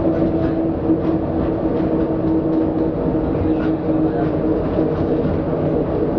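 Translohr rubber-tyred tram running at steady speed, heard from inside the passenger cabin: a constant drive hum with several held steady tones over an even rolling rumble.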